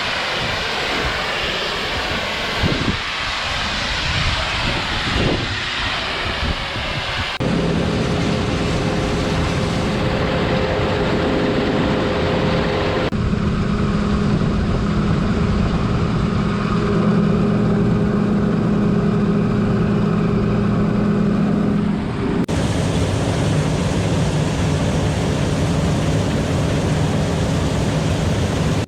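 John Deere combine harvester running, a steady droning engine hum with a few steady tones. For the first several seconds there is mostly a wind-like rush, and the drone changes character suddenly a few times.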